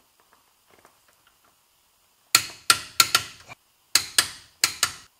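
Click-type torque wrench breaking over as the axle bolts are brought to 48 ft-lb: sharp metallic clicks starting a little over two seconds in, coming in quick groups, each with a short ring.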